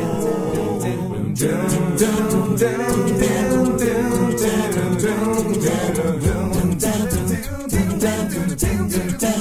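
Background music of a cappella voices singing in harmony, with a regular beat of sharp percussive clicks.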